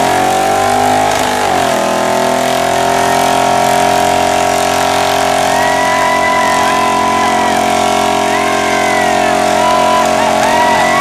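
Chevy big-block V8 pickup engine revving hard in a burnout: the revs climb and dip over the first two seconds, then are held high and steady while the rear tyres spin and smoke.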